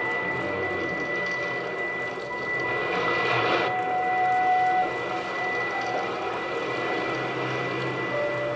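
Improvised electronic music. A sine-wave oscillator holds one steady high tone while lower tones come and go over a shifting noise texture. The texture swells a little after three seconds and drops back near five.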